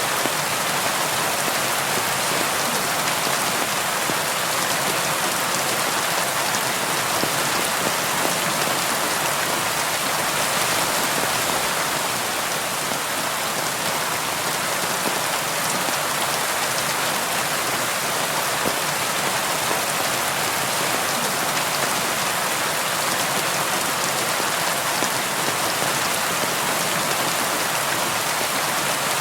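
Steady rain pattering on window glass, an even hiss of drops with fine taps.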